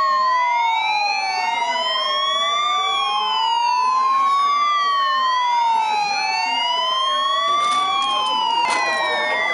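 Ambulance sirens wailing: two slow rising-and-falling tones overlap out of step. Near the end there are a few sharp knocks and clatters, and a faster warbling tone joins in.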